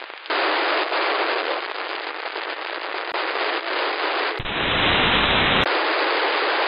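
Narrowband FM receiver static from a software-defined radio tuned to the military UHF satcom band: a steady hiss with no voice in it. About four seconds in, the hiss changes for just over a second to a deeper, fuller noise as the receiver is retuned to another satcom frequency.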